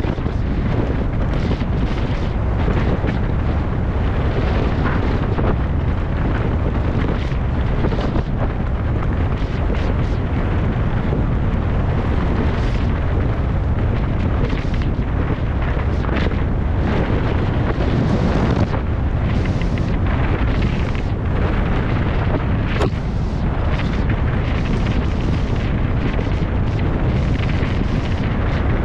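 Loud, steady wind rumble on the microphone, with frequent knocks and rattles scattered through it, as from a camera moving fast over rough ground.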